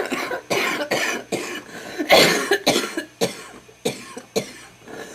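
A smoker's wet cough: a long fit of about ten coughs in a row, the hardest about two seconds in.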